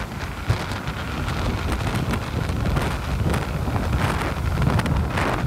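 Strong wind buffeting the microphone with a low rumble, over storm surf washing up the beach in foamy swashes. The hiss of the wash swells louder about four seconds in.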